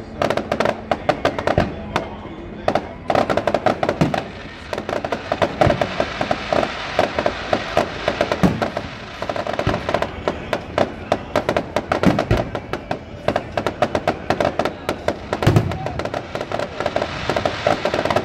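Aerial fireworks bursting in a continuous show: dense rapid crackling throughout, with several deeper booms a few seconds apart.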